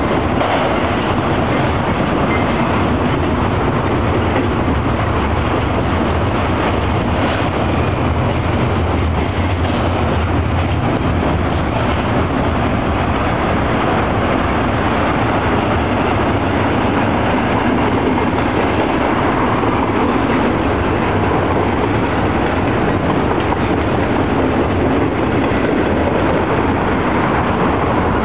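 BNSF double-stack container train rolling slowly past: the diesel locomotives' low engine drone, strongest around eight to eleven seconds in, and the well cars' wheels on the rails in a steady rumble.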